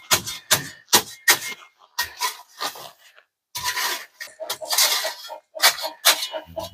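A quick, irregular run of sharp clicks, knocks and clinks, with a stretch of rustling a little past halfway, as of objects being handled and moved about.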